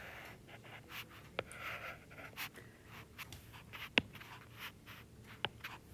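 Stylus tip scratching and tapping on an iPad's glass screen while lines are drawn: faint strokes with a few sharp ticks, the loudest about four seconds in.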